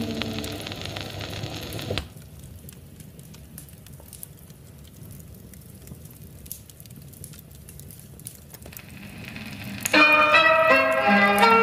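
The last held notes of a Turkish art music song fade and cut off about two seconds in, leaving a wood fire crackling softly with scattered small pops. Near the end the next song starts abruptly on keyboard instruments.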